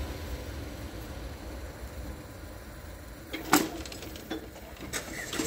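Low rumble of a train fading away past the level crossing, with one sharp click about three and a half seconds in and a few fainter clicks after it.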